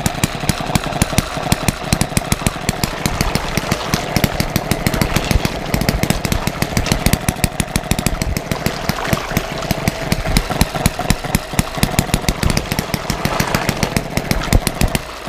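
Small single-cylinder hit-and-miss model engine (7.5 cc Banggood kit) running under load, directly driving a 70 mm boat propeller in a tub of water. It gives a rapid, steady run of ticks and pops from its firing and valve gear.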